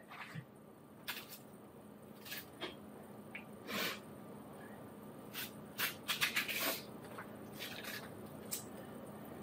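A kitchen knife cutting chunks off a hand-held piece of peeled pineapple: quiet, short cutting sounds every second or so, with a quick run of them about six seconds in.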